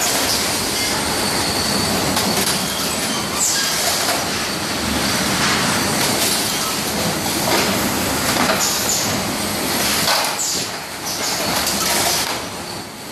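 Automatic carton packing and case-sealing machinery running, a steady mechanical rumble with rattling from the roller conveyors. Brief high hisses come every few seconds.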